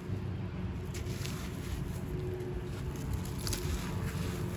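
Dry grey gritty concrete crumbling, with a few faint crunches and crackles over a steady low rumble.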